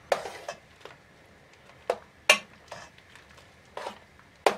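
A spoon stirring thick chowder in an enamel pot, knocking and clinking against the pot's sides about seven times at uneven intervals.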